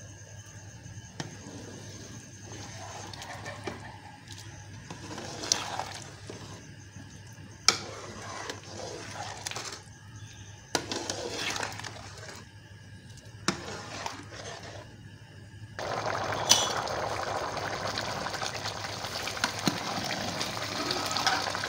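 Metal spoon stirring rice into boiling pulao broth in an aluminium pot, with about five sharp clinks of the spoon against the pot. In the last third a louder, steady watery rush of stirring and boiling takes over.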